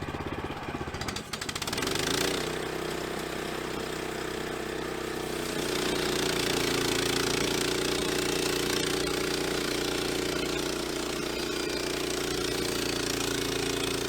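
The EZ Boardwalk Jr sawmill's engine starts. It runs rough for the first couple of seconds, then settles into a steady run, and gets louder from about five and a half seconds in as it is throttled up.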